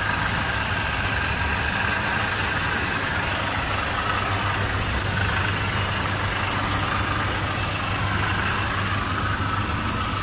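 Ford 6.2 L gas V8 idling steadily, with a rattle that seems to come from one of the accessory-drive pulleys.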